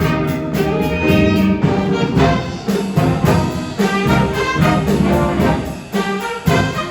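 Junior high school jazz band playing, with brass and saxophones sounding together over a steady cymbal beat.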